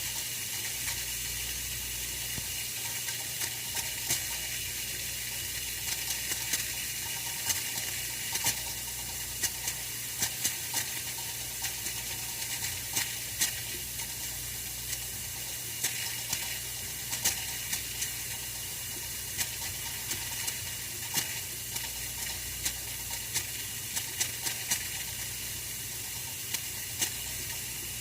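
Oil-filled radiator heater running: a steady hiss over a low hum, with irregular light ticks and crackles scattered throughout.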